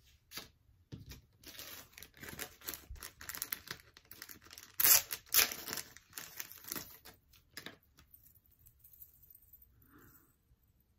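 Small clear plastic jewellery packaging bag being crinkled and torn open by hand: a run of rustles and rips, loudest about five seconds in, that dies away after about eight seconds.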